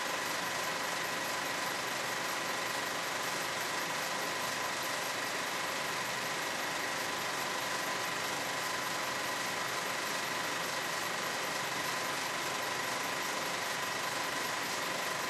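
A steady, even hiss with a constant high-pitched whine that does not change through the picture cuts: recording noise, not a sound from the scene.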